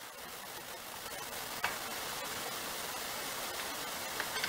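Steady hiss of background noise, with one light metallic click about one and a half seconds in and a few more near the end as the brake caliper is fitted over the new pads and disc.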